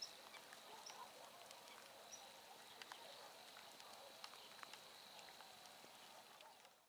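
Faint light rain falling on a river, with many scattered drop ticks, and distant birds calling with short high chirps. The sound fades out near the end.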